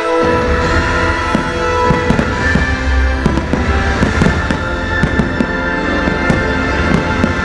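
Aerial fireworks going off in a rapid series of bangs and pops, over a show's music soundtrack played through loudspeakers.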